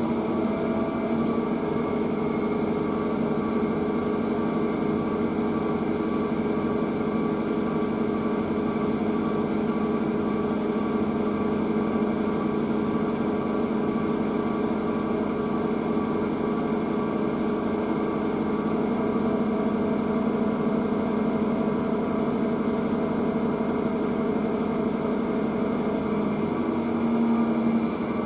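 Electrolux W465H front-loading washing machine running: a steady motor hum and whine as the drum turns at constant speed, with a slight change in pitch near the end.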